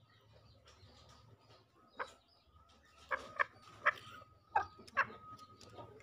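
Green junglefowl giving short, sharp calls, about six of them spaced irregularly from about two seconds in.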